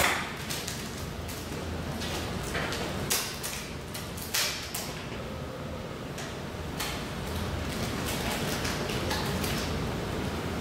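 A steady low room hum with scattered short clicks and knocks, most of them in the first seven seconds; the loudest are at the very start and about three and four and a half seconds in.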